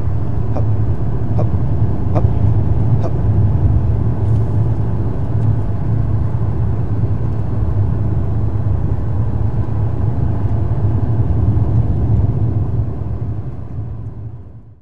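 Steady low road and engine rumble heard inside a moving car's cabin, with a few short light ticks in the first three seconds; it fades out near the end.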